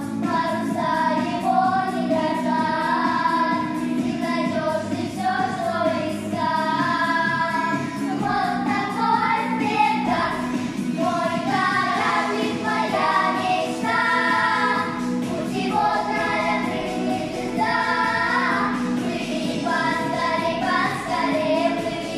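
A small group of young children singing a pop song together in unison over instrumental accompaniment.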